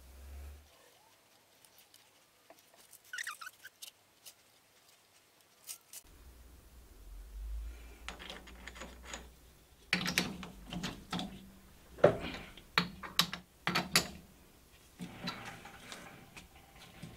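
Faint clicks, then from about ten seconds in a run of sharp metal knocks and clinks as a chuck key turns the jaws of a metal lathe's chuck, clamping a small workpiece; the loudest knock comes about twelve seconds in.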